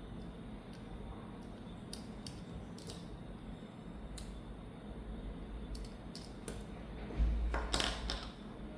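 Small metal tools and tiny watch parts being handled during a watch teardown: a few faint sharp clicks, then a louder knock and a short scrape near the end, over a low steady hum.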